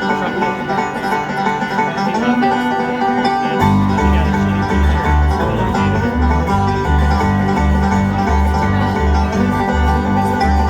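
Live bluegrass band playing an instrumental intro, with banjo and guitar picking. Strong low bass notes come in about three and a half seconds in and keep a steady rhythm.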